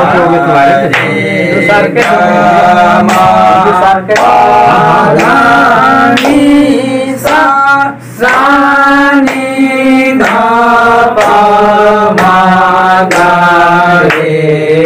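A man chanting sargam note syllables in held, stepping pitches, clapping his hands on the beat about once a second.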